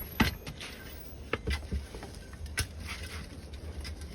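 Scattered soft knocks and rustles of soil and wood chips being scooped and moved by hand, over a low rumble.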